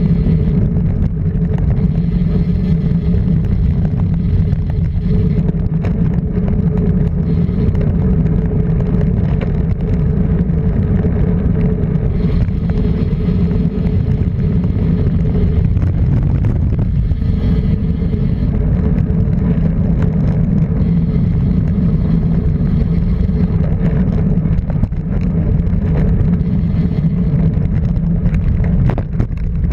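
Rally car engine running loudly at steady revs, its pitch barely changing throughout.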